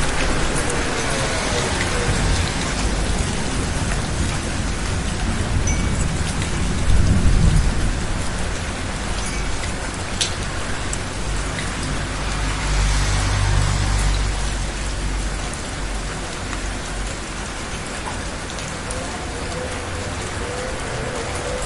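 Steady rain falling on a city street, with cars passing on the wet road: one pass swells loudest about seven seconds in and another around thirteen seconds.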